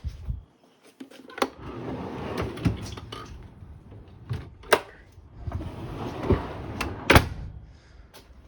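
Handling noises: scattered knocks and clicks over rustling. The loudest knock comes about seven seconds in.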